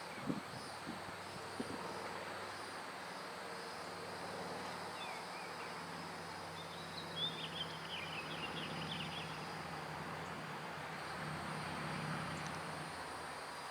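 Outdoor background with a low steady hum that swells near the end, high insect buzzing, and a bird chirping a quick run of notes about seven seconds in; no siren is sounding.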